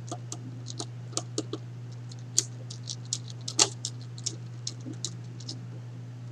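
Irregular small clicks and taps of fingers working a wire into a plastic screw terminal block, with two sharper clicks a little after two and three and a half seconds in, over a steady low hum.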